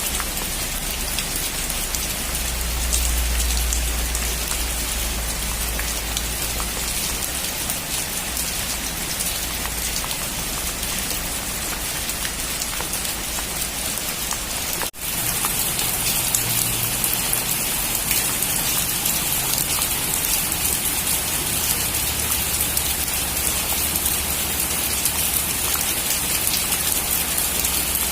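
Heavy rain drumming steadily on a metal roof, a dense patter of drops with a deep low rumble underneath through the first half. About halfway the sound drops out for an instant and comes back brighter, with less low rumble.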